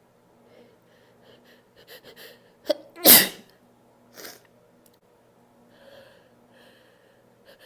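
A person sneezing once, loud and unstifled, about three seconds in, with a few quick faint breaths and a sharp short catch of breath just before it. A weaker breath follows about a second later.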